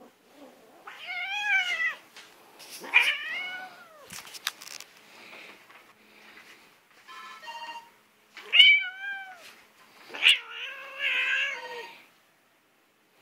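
Domestic cat meowing repeatedly: about four drawn-out, complaining meows, each rising and then falling in pitch, the last one long and wavering. A few sharp clicks come between the calls, after the second meow.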